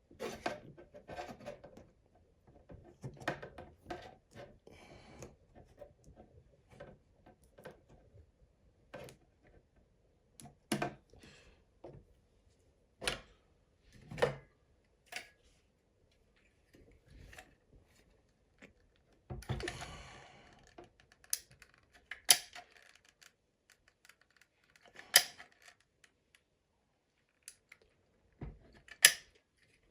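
Irregular clicks, taps and knocks of hand work with small hard objects, with short pauses between them.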